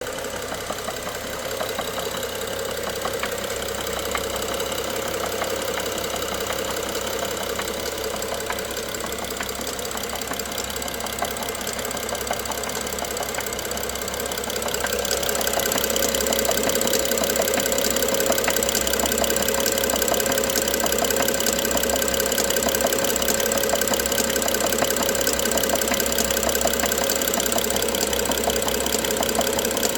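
BMW N55 turbocharged straight-six engine running with a fast, regular knock through it, getting louder about halfway through. This is the engine knock the owner is recording.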